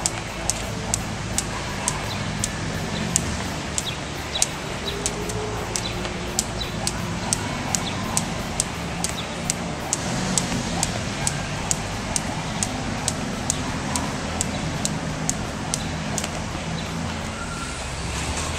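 Jump rope slapping the asphalt in a steady rhythm, about two or three slaps a second, over the hum of street traffic.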